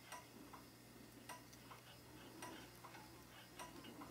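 Turn-signal flasher of a 1972 Chevrolet K25 ticking faintly, a click for on and a click for off, four pairs a little over a second apart. The flash is slow, which the owner traces to a front turn-signal bulb not seated all the way in its socket.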